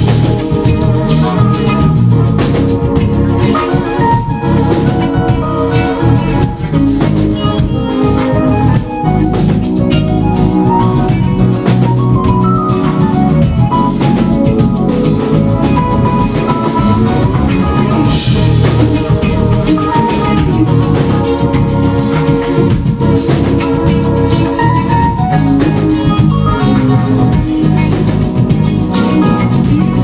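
Funk band playing live: keyboards and organ-like chords over drum kit and guitar, continuous and full.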